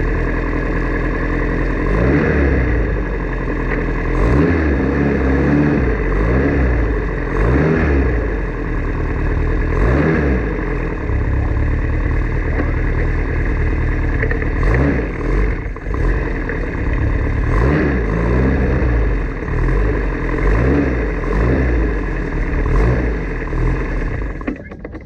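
Formula Ford race car engine running hard, its pitch climbing and dropping again and again as the car accelerates and changes gear.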